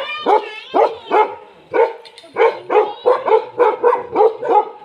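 Bhotiya dogs barking in a fast, steady run of short barks, about three a second: guard barking at night.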